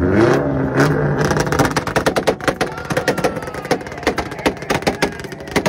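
Honda S2000's four-cylinder engine revving up, then held on a two-step launch limiter, with a rapid, uneven string of sharp exhaust pops and bangs from about a second and a half in that thins out near the end.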